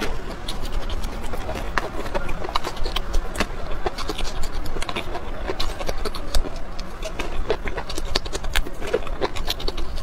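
Close-miked eating: chewing and crunching of raw red chili peppers and a steamed stuffed bun, a steady run of sharp crunches and wet mouth clicks and smacks.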